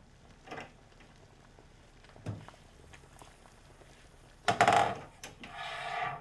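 Metal cookware at a stove: a couple of soft knocks, then a loud ringing clatter as a metal pan lid is lifted about four and a half seconds in, followed by a shorter rattle.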